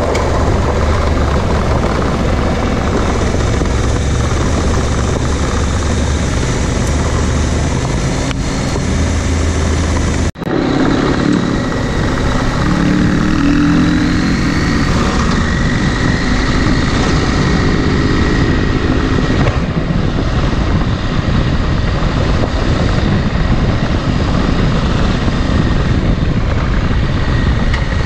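Adventure motorcycle running as it is ridden, its engine note mixed into a steady rushing noise. There is a sudden brief break about ten seconds in, and the engine pitch shifts up and down for several seconds after it.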